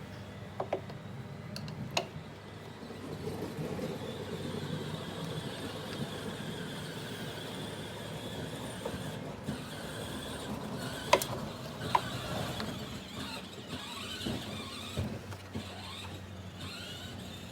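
Electric ATV winch motor running for several seconds with a steady whine, turning the drum to wind on the new synthetic rope. A few sharp clicks sound over it.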